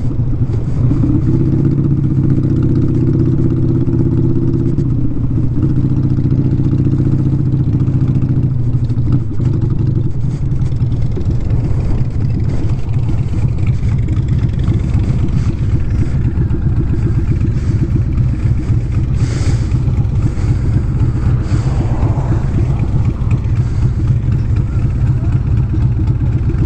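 Motorcycle engine running under way, with wind rumbling on an unshielded microphone. The engine note is steady for about the first ten seconds, then drops lower and rougher.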